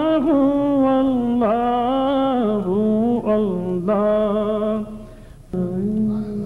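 A man singing an Arabic na'at unaccompanied, holding long wavering notes with melodic turns. The voice breaks off briefly about five seconds in, then takes up another long held note.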